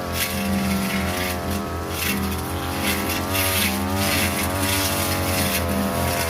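42cc two-stroke brush cutter with a metal blade running at high speed, its engine pitch wavering up and down as the blade cuts through tall grass and brush.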